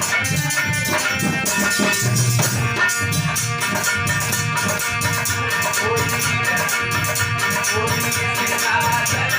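Devotional folk music without singing: a fast, even jingling rhythm of shaken percussion over a low drum beat, with held melody tones.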